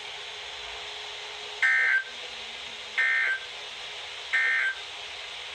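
Three short bursts of EAS end-of-message data tones, the two-tone digital warble of a weather-radio alert encoder, evenly spaced about 1.4 s apart over steady radio hiss. They signal that the alert message has ended.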